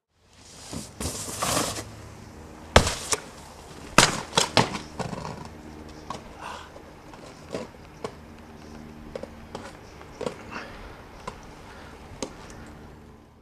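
Snowboard hitting and sliding on a metal rail and snow: a rush of noise near the start, several sharp knocks around three to five seconds in, then scattered lighter knocks over a steady low hum.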